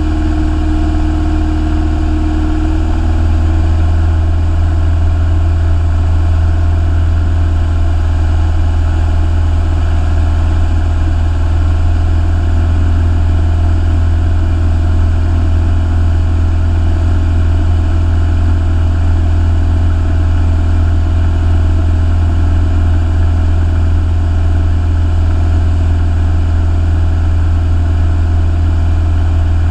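Single-engine light aircraft's piston engine and propeller droning steadily in flight, heard inside the cockpit. The drone shifts slightly and gets a little louder about three seconds in.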